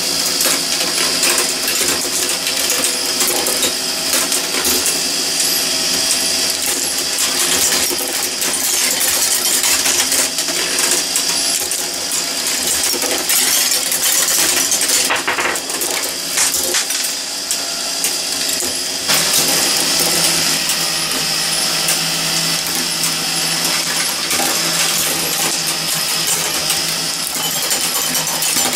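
Meccano marble machine running: metal gears and strips clicking and clinking continuously as glass marbles rattle through the lifting mechanism.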